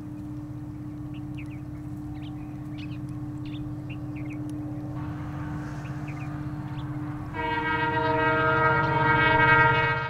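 Background music: a sustained droning chord with faint bird chirps over it. About seven seconds in, a louder, fuller chord enters and swells, then cuts off at the end card.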